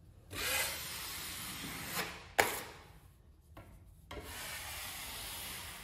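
A 6-inch taping knife scraping across joint compound in two long strokes of about two seconds each, with a sharp click between them about two and a half seconds in.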